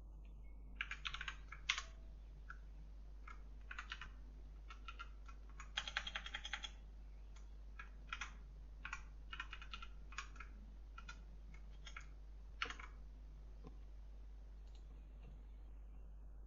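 Computer keyboard typing in short, irregular bursts of keystrokes, with a dense run about six seconds in, then a few last clicks near thirteen seconds.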